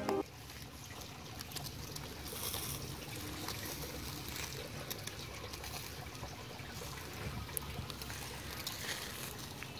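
Marinated beef tikka skewers sizzling on a barbecue grill: a steady hiss with scattered small crackles and pops.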